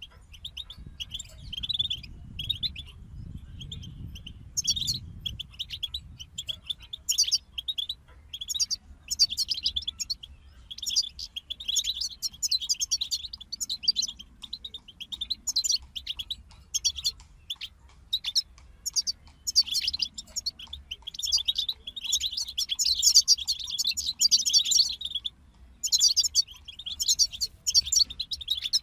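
European goldfinches singing: a rapid, high twittering song of fast trills and chirps, with short breaks between phrases.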